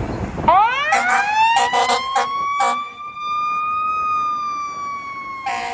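Fire engine siren winding up in a long rising wail that levels off and starts to fall. Several short horn blasts sound over it in the first half. Near the end a steadier, lower-pitched tone takes over.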